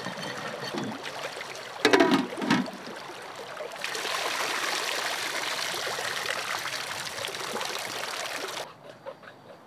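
Shallow river water splashing around people standing in it, with a few loud splashes and knocks about two seconds in. From about four seconds, water poured from a large metal pot falls in a steady stream into a metal bowl and the river, then stops abruptly near the end.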